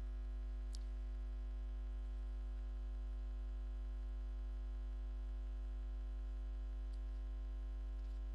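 Steady low electrical hum with a stack of evenly spaced overtones, like mains hum in a sound system, with a faint tick about a second in and two fainter ones near the end.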